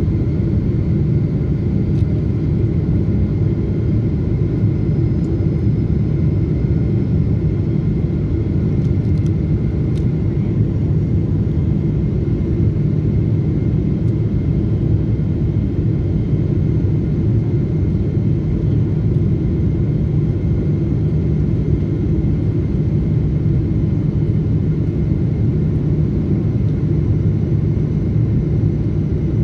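Passenger jet cabin noise on descent, heard beside the engine: a steady rumble of the turbofan and airflow, with a faint steady whine above it.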